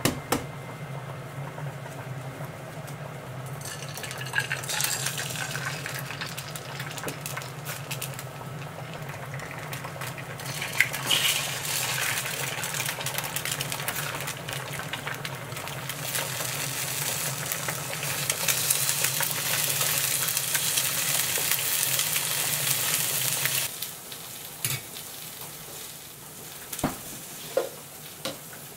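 Two eggs frying in oil in a white nonstick frying pan, sizzling over a steady low hum; the sizzle starts a few seconds in, grows louder, then cuts off suddenly near the end. A few light knocks of plastic containers follow.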